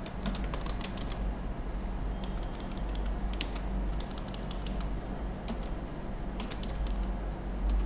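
Computer keyboard being typed on: a run of irregular key clicks as a line of text is entered, over a steady low hum.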